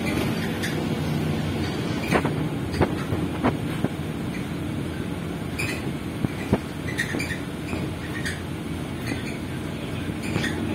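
Cabin of a moving public-transport vehicle: a steady running rumble with a low motor hum, and sharp clicks and knocks now and then, most of them a couple of seconds in and one more in the middle.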